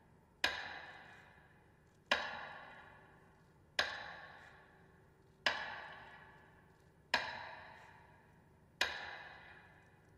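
Metronome beats marking a minute of silence: a sharp, ringing strike about every 1.7 seconds, each fading away before the next, six strikes in all.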